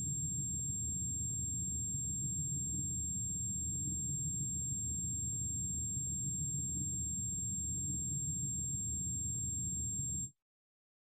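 A steady low rumbling drone with a thin, high-pitched whine held over it, unchanging, cutting off suddenly about ten seconds in.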